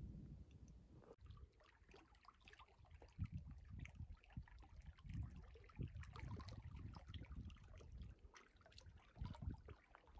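Faint lapping of small ripples against a rocky lakeshore, a scatter of soft irregular ticks and splashes, with low gusts of wind buffeting the microphone.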